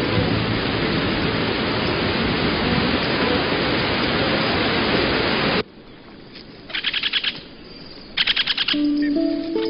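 Heavy rain hissing steadily, then cutting off abruptly a little past halfway. Two short bursts of very fast, high chirping trills follow, and a few plucked notes come in near the end.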